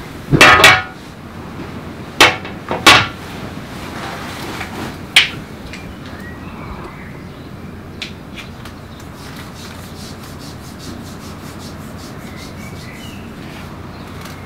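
A few sharp knocks or clicks: a quick pair at the start, then single ones about two, three and five seconds in. After them only faint light ticks over steady background noise.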